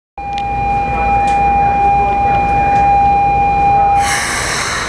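A steady electronic signal tone sounds from the stopped train's platform side for about four seconds, then cuts off as a sudden hiss of compressed air from the train takes over.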